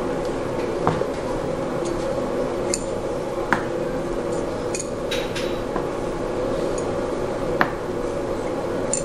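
Steel valve keepers, springs and valves from a Fiat 1200 cylinder head clinking as they are taken off the head and set down on a metal workbench: a few sharp clicks, the loudest about one, three and a half and seven and a half seconds in, among lighter clinks. A steady hum runs underneath.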